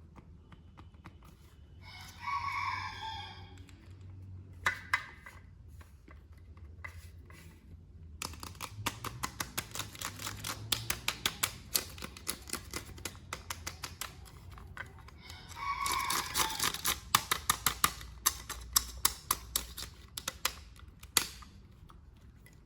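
Plastic clicking and crinkling from a toy figure and its packaging being handled. Two short bursts of crinkling come about 2 s and 16 s in, each followed by long runs of quick, sharp clicks.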